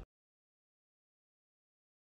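Silence: the fiddle music cuts off right at the start, and nothing follows.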